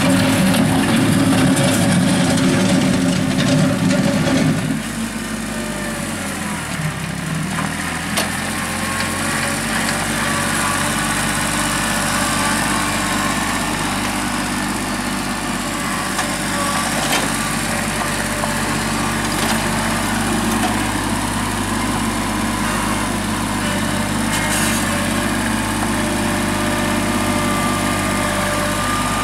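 2001 New Holland TC18 compact tractor's three-cylinder diesel engine running as the tractor drives and works its front loader. About five seconds in, the engine note drops to a quieter, lower level, then runs steadily.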